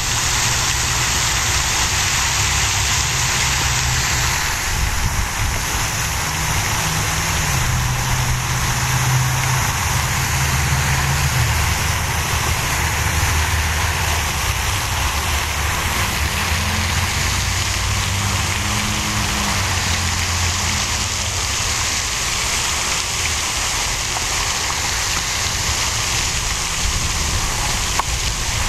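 Steady rushing noise with a low engine hum under it that shifts in pitch now and then.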